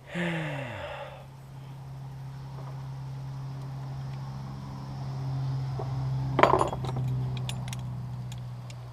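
Metal hand tools clinking against steering parts. There is one sharp metallic clank with a brief ring about six and a half seconds in, followed by several light ticks, over a steady low hum.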